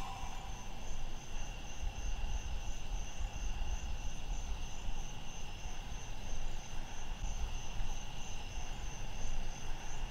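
Crickets chirping steadily, a high pulsing trill that repeats about two or three times a second, over a low rumble.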